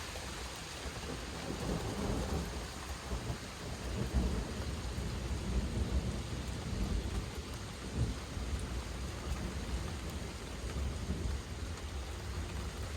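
Thunderstorm: steady rain with low rolling rumbles of thunder, swelling about two seconds in and again through the middle.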